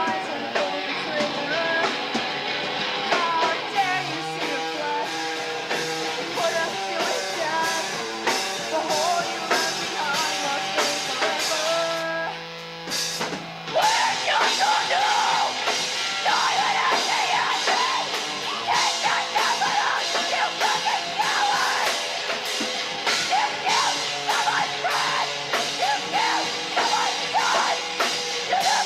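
Live rock band playing loudly with drum kit and vocals. A little before halfway the music drops away briefly, then the full band comes back in louder.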